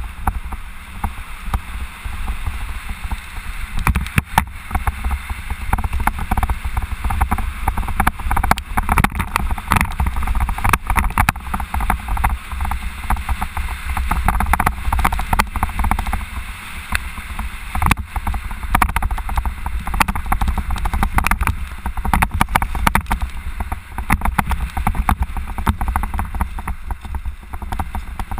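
Mountain bike riding fast down a rough dirt trail: a steady low rumble of wind and rolling tyres, with frequent sharp clatters and knocks as the bike goes over bumps.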